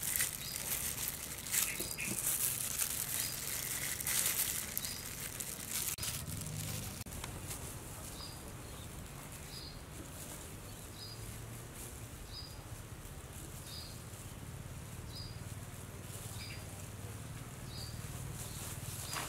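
Light crinkling and rustling of hands at work for the first several seconds, then a short high chirp repeating about every three-quarters of a second over a low steady hum.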